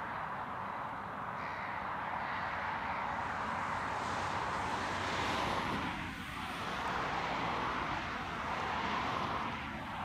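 John Deere 7830 tractor's six-cylinder diesel engine running steadily under load while ploughing.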